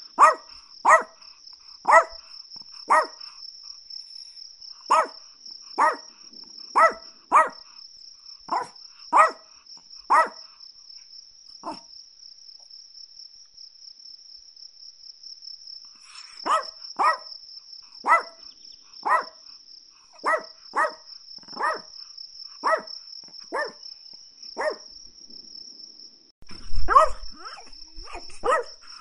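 Chihuahua barking in short sharp yaps, about one a second, with a few seconds' pause around the middle and a louder flurry near the end. A steady high-pitched cricket-like trill runs underneath.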